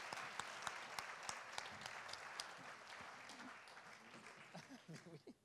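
Audience applauding, dense clapping that thins out and fades away over the last couple of seconds.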